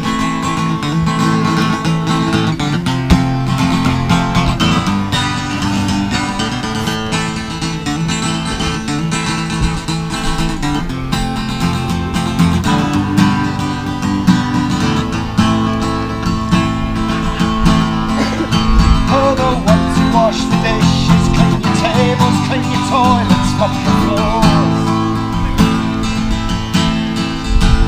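Acoustic guitar strummed in an instrumental stretch of a song, with no singing. A higher melody line bends in pitch over the second half.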